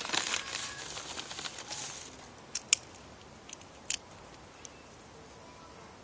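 Rustling and crinkling for about the first two seconds, then a few sharp clicks spaced about a second apart.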